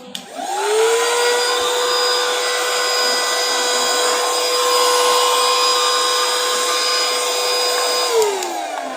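Gemei cordless handheld vacuum cleaner switched on, its motor whine rising in pitch as it spins up, running steadily with a rush of air for about eight seconds, then winding down in pitch as it is switched off near the end.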